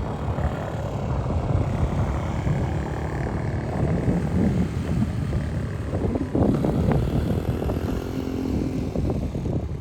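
Small pit bike engine running as the bike is ridden, its pitch shifting a little in the second half.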